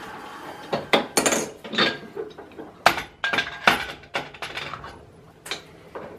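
A quick run of sharp metallic clinks and knocks as steel lathe tooling is handled: the tailstock drill chuck and tools are knocked against the machine's carriage and tailstock, about a dozen strikes.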